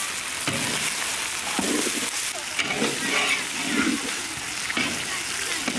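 Fried snakehead fish and green chilies sizzling in a large iron wok while being stirred and turned with a spatula, which scrapes and knocks against the pan about once a second.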